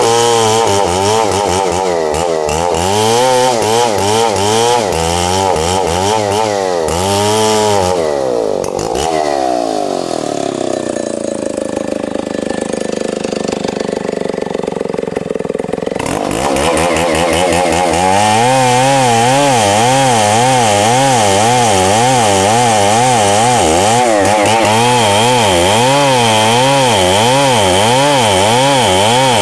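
Large two-stroke Stihl 070 chainsaw cutting lengthwise through timber at high revs, its engine pitch rising and falling about once a second as the bar loads and unloads in the cut. About a third of the way in, the revs sag for several seconds, then pick back up to full speed.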